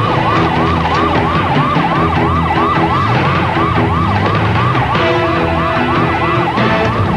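Police car siren in a fast yelp, rising and falling about three to four times a second without a break, over lower steady tones.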